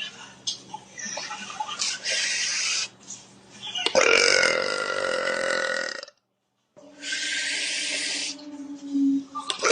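A young woman's long, loud burp lasting about two seconds, starting about four seconds in and falling slightly in pitch. Short bursts of hiss come before it, and another burp begins right at the end.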